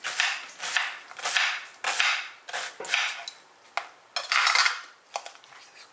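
Knife slicing through a white onion, each cut ending with a knock on a plastic cutting board, in a steady run of about nine cuts, a little under two a second.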